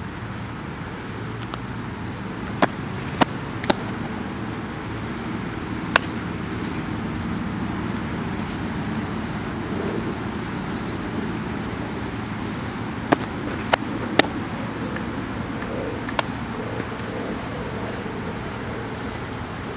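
About eight sharp smacks of a softball popping into a catcher's mitt, some in quick runs of two or three, over a steady hum of road traffic.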